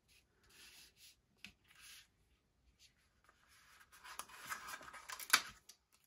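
Paper sticker sheets rustling and sliding over a cutting mat as they are handled. The rustling grows louder about four seconds in as a sticker is picked at and peeled from its sheet, with one sharp tick near the end.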